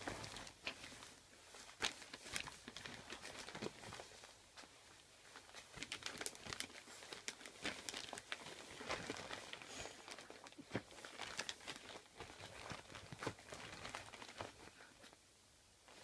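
Christmas wrapping paper crinkling and rustling in fits and starts as a small dog burrows underneath it and pushes it about.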